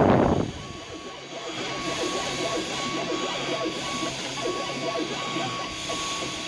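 Desktop 3D printer's stepper motors running as the print head makes short, quick moves, with a thin steady whine that cuts out briefly now and then. At the very start there is a short, loud rush of noise.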